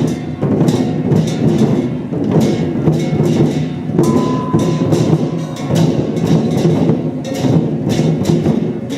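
Lion dance percussion: a drum beating with repeated cymbal crashes, several strikes a second, in a steady driving rhythm.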